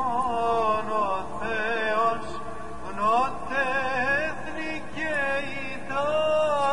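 Male voice chanting a slow, ornamented melody in the style of Byzantine Orthodox chant, the pitch winding up and down on long held notes.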